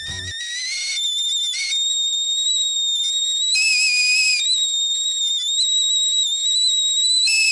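Kettle whistling at the boil: a shrill whistle that rises in pitch over the first second, then holds steady, dropping twice briefly to a lower note.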